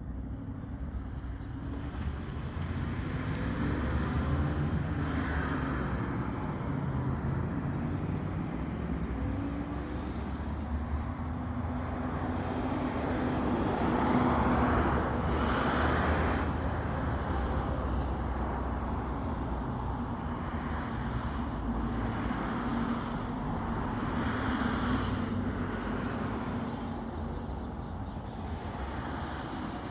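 Motor vehicle running: a steady low engine and road rumble with a faint hum, swelling louder about halfway through.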